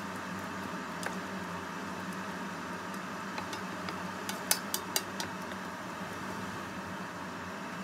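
A wooden spatula stirring glass noodles and shrimps in a frying pan of simmering sauce, over a steady hiss. It taps the pan once about a second in, then gives a quick run of about five sharp knocks against the pan around four and a half seconds in.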